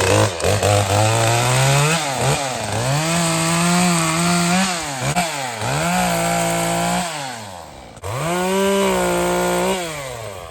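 Forest Master FM8DD wood chipper's engine labouring as a branch is fed through. Its speed sags and picks up again several times, with the crunch of wood being chipped, and near the end it slows and drops off.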